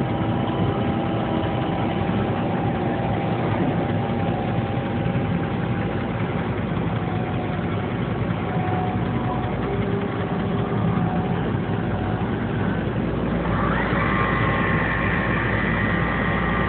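Tsugami B0386III CNC Swiss lathe running a machining cycle: a steady machine hum with several whining tones. Near the end a whine rises in pitch, then holds steady.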